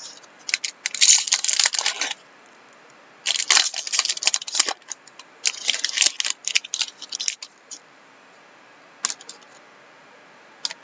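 Crinkling and rustling of a hockey card pack being torn open and its cards thumbed through, in three bursts of a second or two each, followed by a few light clicks near the end.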